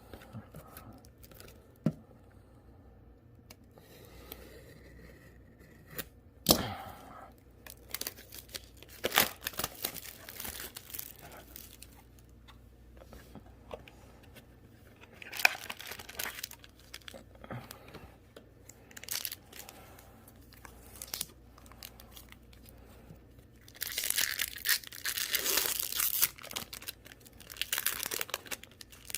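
Trading card booster pack wrappers and a small card box being torn open and crinkled, with scattered clicks and taps from handling; the longest stretch of crinkling comes near the end.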